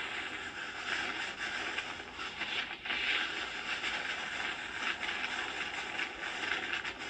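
Steady rushing noise of hurricane wind and rain around a vehicle driving through the storm, rising and falling in strength.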